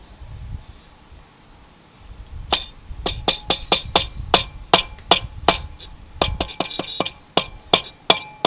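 Rubber mallet tapping a Honda Dash's aluminium cylinder block down onto the crankcase over the piston, seating it. The sharp taps start about two and a half seconds in and come roughly three a second.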